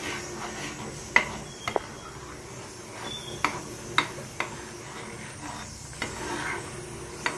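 Steel spatula stirring a simmering tomato masala in a pan over a steady sizzle, with several sharp clicks as it knocks against the pan.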